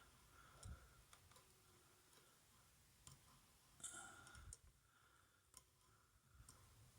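Faint, irregular clicks of a disc detainer pick turning the discs inside a six-disc padlock, with a small cluster of clicks about four seconds in.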